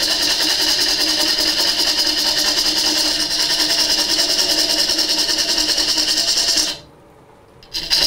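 Wood lathe running while a hollowing tool scrapes and cuts inside a spinning block of very hard, dry wood, giving a steady hissing cut noise. The cutting breaks off for about a second near the end, then resumes.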